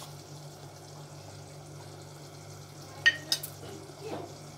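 Kitchen utensils clink sharply a few times about three seconds in, one with a brief metallic ring, and there is a softer knock a second later. Underneath runs a steady low hum with a faint hiss.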